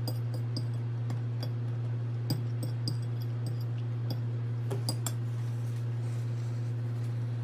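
Metal fork scraping and clinking against a ceramic plate, a scatter of small clinks through the first five seconds or so, the last one as the fork is laid down. A steady low hum runs underneath.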